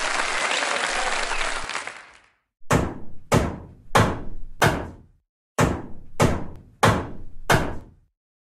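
Applause fading out over the first two seconds, then eight heavy thunks in two sets of four, about one every two-thirds of a second, each dying away quickly. The thunks are a cartoon head-banging sound effect.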